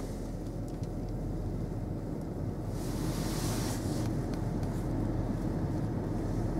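A 2017 Ford Escape's engine idling, heard from inside the cabin as a steady low rumble, with the heater blower's air rush over it. The engine is still warming up from a cold start in below-freezing air. About three seconds in there is a brief rise in hiss.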